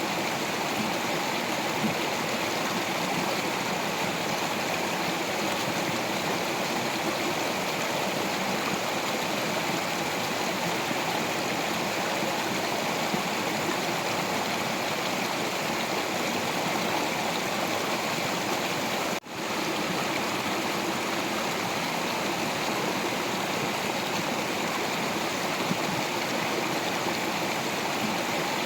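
A stream of water running over rocks, a steady rushing and gurgling. It drops out for an instant once, about two-thirds of the way in.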